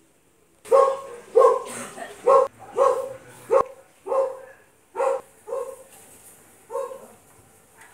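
A dog barking repeatedly, about a dozen sharp barks a little under two a second, loudest at first and growing fainter toward the end.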